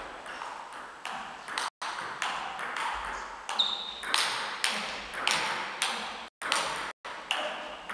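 Table tennis ball clicking off the paddles and the table in a continuous rally, about two to three hits a second, each hit echoing in a large hall.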